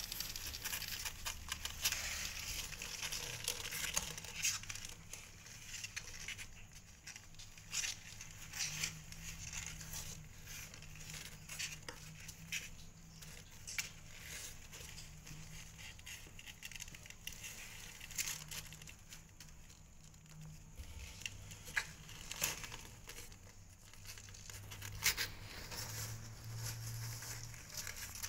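Kittens' paws scratching and scrabbling on the cardboard floor and sides of a box, an irregular run of light scratches and taps as they crawl over one another.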